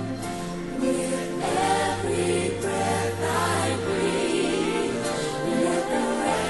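Gospel choir singing over sustained instrumental chords, a worship song carrying on without a lead vocal line.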